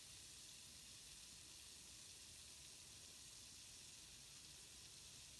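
Near silence, with a faint steady fizzing hiss from a Lush Ectoplasm jelly bath bomb slowly dissolving in bathwater.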